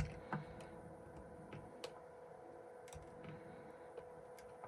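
A few small clicks and ticks from handling a phone's parts with a tool, the sharpest right at the start and another just after, then fainter ticks every second or so, over a faint steady hum.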